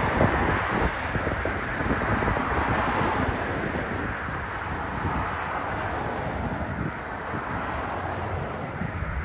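Steady jet engine noise from a Boeing 787-10 moving along the runway, mixed with heavy wind buffeting on the microphone.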